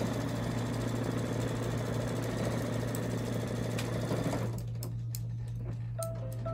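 Embroidery machine stitching at a fast, even pace as it tacks the backing fabric down to the front of the in-the-hoop piece. It stops suddenly about four and a half seconds in, leaving a steady low hum.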